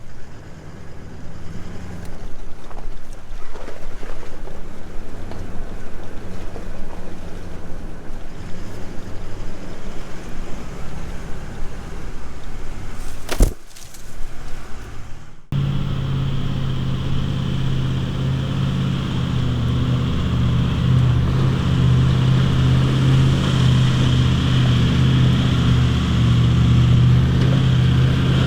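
Four-wheel-drive vehicle engine running as it drives a bush track, with a sharp knock just before the halfway point. About halfway through, the sound changes suddenly to a steadier, louder engine drone.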